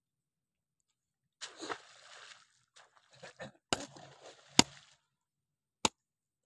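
Shovel digging into wet mud: wet scraping and sloshing noise starting about a second and a half in, broken by three sharp knocks, the loudest just past the middle.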